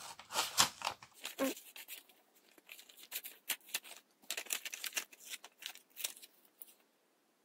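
Scissors cutting through a sheet of printed paper, slicing it into strips: a run of short snips with paper rustling between them, stopping shortly before the end.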